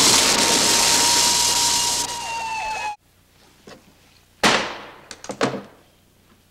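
A car plunging into water: a loud splashing rush with a held note over it, cut off abruptly about three seconds in. Then a wooden gavel bangs once sharply on the bench, followed by a couple of lighter knocks.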